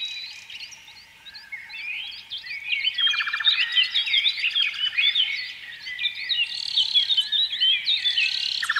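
Many small birds chirping and twittering together, with a fast buzzing trill that comes in about three seconds in and again near the end.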